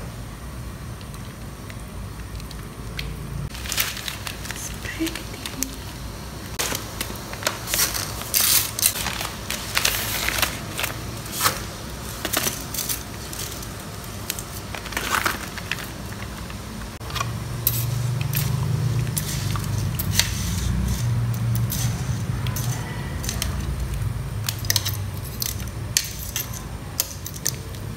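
Dry spaghetti and its plastic packet clicking, crackling and crinkling as the sticks are handled and tipped into a pot of water. From about two-thirds of the way through, a low steady hum comes in under a few more clicks as a spoon stirs the spaghetti in the pot.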